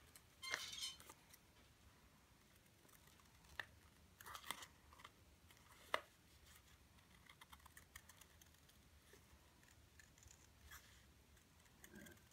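Scissors cutting through folded paper: faint, scattered snips and paper crackles, with the sharpest snip about six seconds in.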